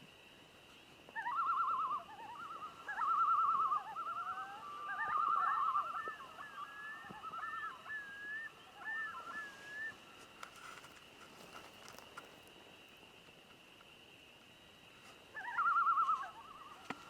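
Wild bird calling: short bursts of rapid, wavering trills, several in the first six seconds and one more near the end, with looping chirps between them.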